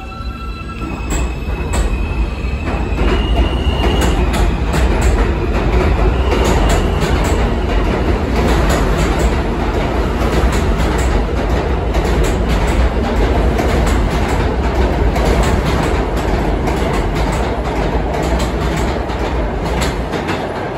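New York City subway train pulling out of the station and running past: an electric motor whine in the first few seconds, then a loud steady rumble of the cars with rapid clacking of the wheels over the rail joints.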